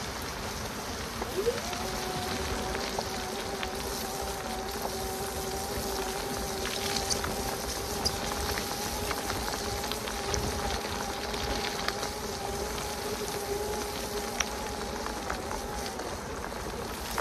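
E-bike motor whirring as a steady two-note whine. The whine sweeps up in pitch as it starts about a second and a half in, holds steady, and stops shortly before the end, over a steady hiss of rain with scattered raindrop ticks.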